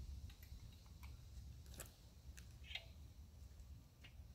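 Near silence, with a few faint, scattered clicks from hands handling a 1946 Fairbanks Morse Z Style D engine that is not yet running. The sharpest click comes about two seconds in.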